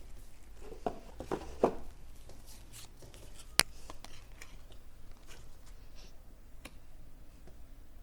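Handling of storytelling pieces being unpacked and set down: a few soft knocks about a second in, one sharp click a little past the middle, then faint ticks.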